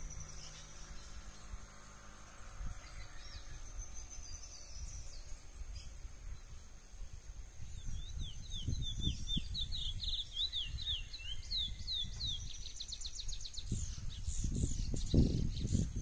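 Wild chestnut-bellied seed finch (curió) singing: a run of quick sliding whistled notes from about halfway through, ending in a fast high trill. A thin steady high tone runs in the first few seconds, and low rumbling noise comes in near the end.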